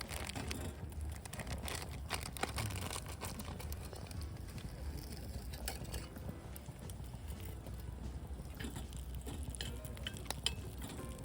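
Wood fire crackling in a fire stand, with irregular sharp pops scattered through it over a steady low rumble.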